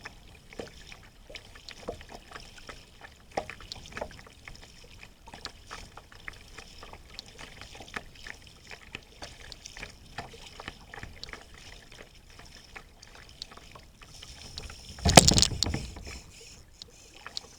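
Small scattered knocks and water sounds around a fishing kayak afloat, with one loud rushing burst lasting about a second, some fifteen seconds in.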